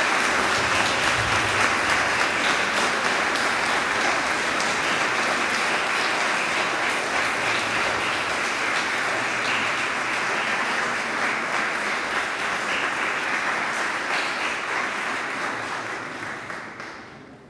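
Audience applauding steadily, the clapping dying away over the last couple of seconds.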